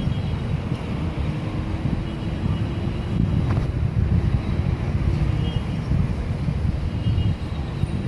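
City street traffic heard from high above: a steady, diffuse rumble of car, taxi and motorcycle engines and tyres, mixed with wind buffeting the microphone.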